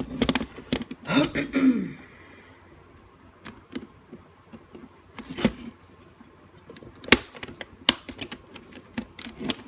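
Scattered small sharp clicks and taps from handling the plastic parts of a car instrument cluster, with a short voice-like throat sound about a second in.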